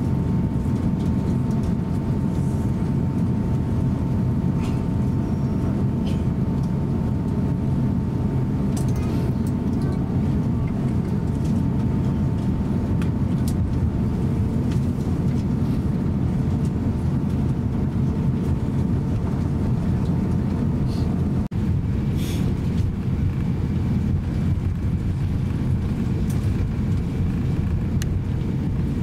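Steady low cabin rumble inside an Airbus A350-900 taxiing on the ground, with its Rolls-Royce Trent XWB engines at idle and a faint steady whine on top. After a brief break about two-thirds through, the whine sits at a lower pitch.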